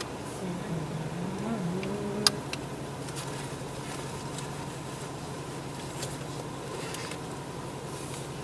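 Car engine idling, heard from inside the cabin as a steady low hum, with one sharp click a little over two seconds in.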